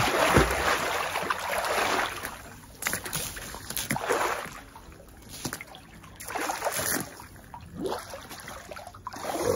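Pool water splashing as two swimmers plunge under and kick up into handstands, loudest in the first two seconds, then smaller splashes and sloshing that come and go.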